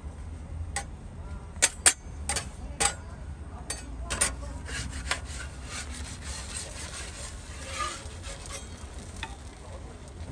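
Metal spatulas working on a flat griddle: sharp clanks as the blade chops shredded potato against the plate, then a quicker run of scraping strokes as two spatulas slide under the egg pancake, over a steady low hum.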